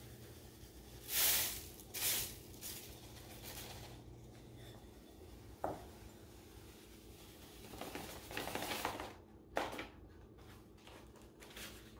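Epsom salt pouring from a glass bowl through a paper funnel into a glass jar, in short hissing rushes. A light knock comes about halfway through, then the paper funnel rustles.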